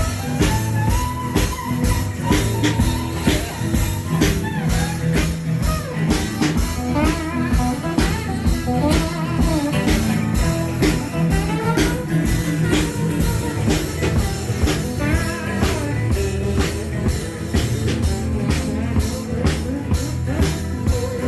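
Blues-rock band playing: guitar over a drum kit keeping a steady beat.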